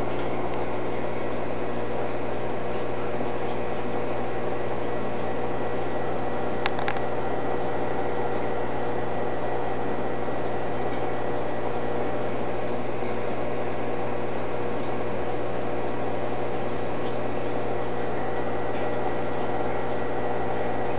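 Steady hum and noise of a nano reef aquarium's running equipment, with several steady tones. A single sharp click sounds about seven seconds in.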